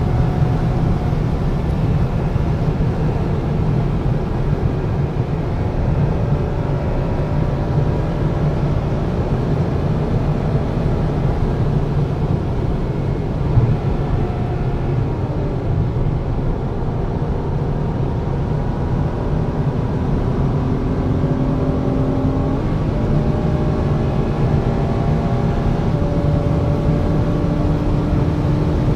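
Interior noise of a Ferrari F12berlinetta cruising at speed on a motorway: a steady low rumble of road and engine, with faint V12 engine tones drifting slowly up and down in pitch. There is one brief thump about halfway through.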